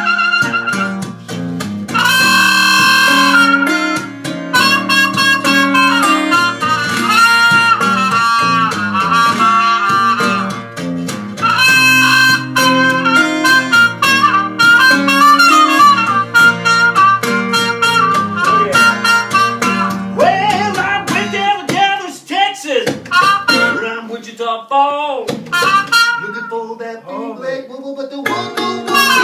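Live blues duo playing: a trumpet plays wailing lead lines with bent notes over an open-tuned acoustic guitar accompaniment.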